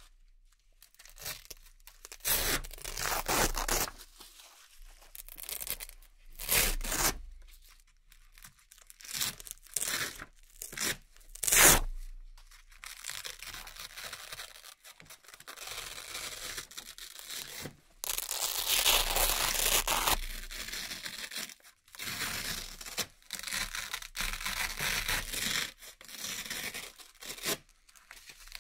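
Round hook-and-loop (Velcro) patches being peeled off a board one after another, each making a ripping tear. There are separate rips of about a second each in the first half, then a denser, nearly unbroken run of ripping in the second half.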